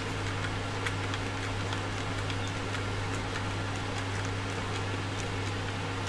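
Steady low hum with a couple of faint clicks from a hand screwdriver driving a screw into the LCD controller's plastic housing.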